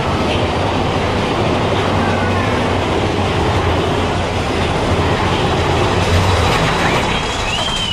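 Big Thunder Mountain Railroad roller coaster train running along its track, heard from a seat aboard: a steady, loud noise of the moving cars and wheels.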